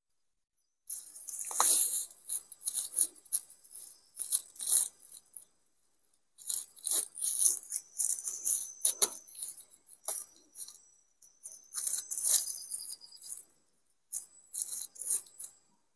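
Crisp rustling and crinkling of plastic being handled, coming in irregular clusters with short silent gaps, as hands work at a shelter's roof pole.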